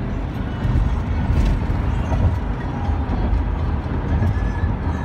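Steady low rumble of a car's tyres and engine while driving, heard from inside the cabin.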